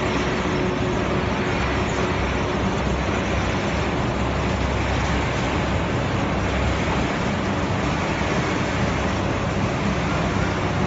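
Steady machinery noise of a running continuous conveyor-belt fryer line: an even rushing drone with no distinct knocks or rhythm.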